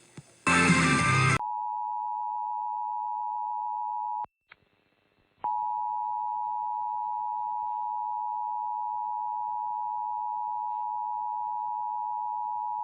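Emergency Alert System alert signal: a short harsh burst of data noise, then the steady alert attention tone. The tone breaks off after about three seconds and starts again a second later, marking the start of a new warning broadcast.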